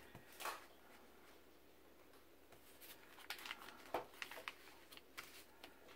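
Near silence with a few faint, short taps and rustles of paper being handled as a pencil mark is made on it.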